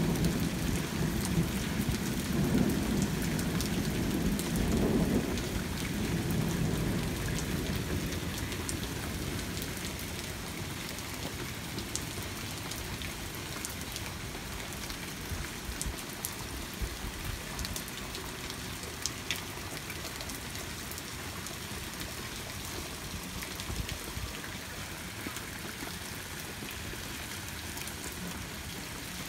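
Thunder rumbling for the first several seconds and then dying away, over steady rain falling, with scattered sharp ticks of drops striking nearby surfaces.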